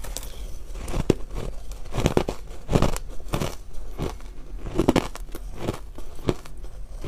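Powdery, crunchy purple ice being bitten and chewed: a steady run of sharp crunches, about one to two a second.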